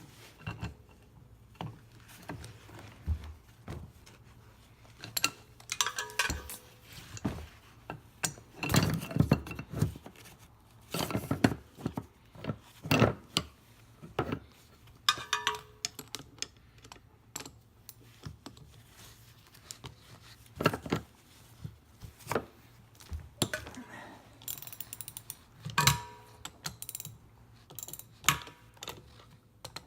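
Hand tools working on the bolts of a semi-hermetic refrigeration compressor: irregular metal clicks, knocks and clanks, a few of which ring briefly.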